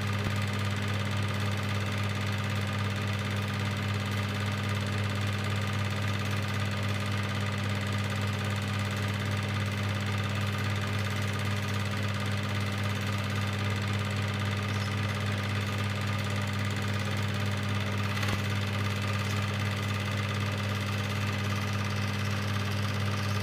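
Cine film projector running: a steady low hum from its motor that does not change, with one faint click about eighteen seconds in.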